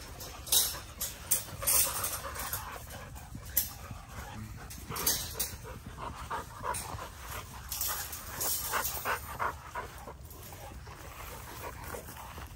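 American bully dogs playing in the grass, with scattered sharp clicks and knocks, the loudest in the first two seconds.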